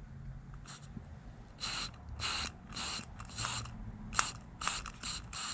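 Short hissing puffs of air, about seven in quick succession starting a second and a half in, pushed into an S&S Super E carburetor's fuel inlet to test whether the float needle valve seals, with a couple of small clicks among them.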